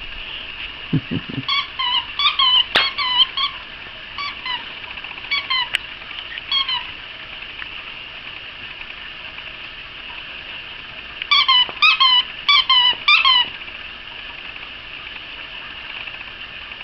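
Squeaker in a plush dog toy squeaking as a dog chews on it. A run of short squeaks comes about two seconds in, a few more around six seconds, and a quick run of squeaks again near the end.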